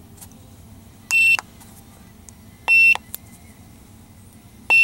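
Handheld OBD-II scan tool beeping as its buttons are pressed while paging through fault codes: three short, high beeps, spaced a second and a half to two seconds apart.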